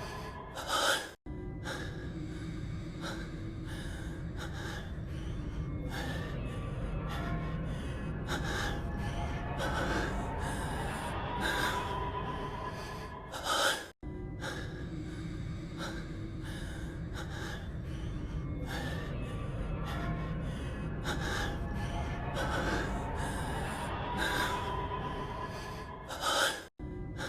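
A male character voice breathing heavily with loud gasps, over a steady low background music bed. It is a short clip looped about every 13 seconds, each pass ending in a loud gasp and a sudden brief cut-out.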